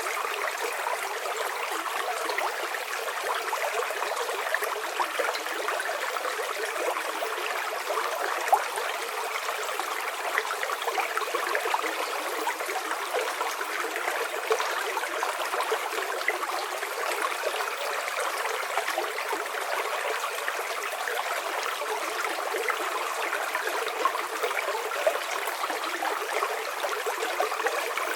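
River water flowing and splashing steadily over stones, a continuous bright rush with many small splashes.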